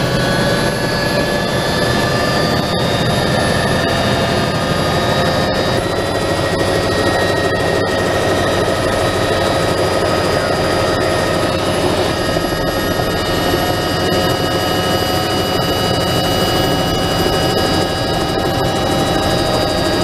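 Bell 206 JetRanger helicopter's turbine engine and rotor heard from inside the cabin: a loud, steady noise with several whining tones that creep slowly higher in pitch.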